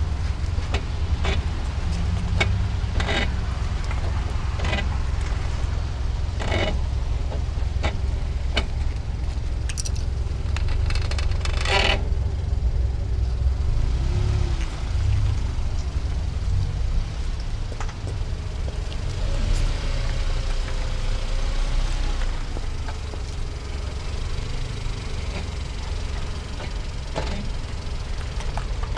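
SsangYong Kyron with its brake pads squeaking and creaking in short repeated bursts over a steady low vehicle rumble, then a few faint wavering squeals. The owner takes this for the brake pads slipping.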